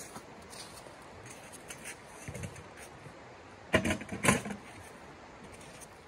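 Footsteps crunching on icy, frozen ground, faint at first, then two loud crunching steps close together about four seconds in.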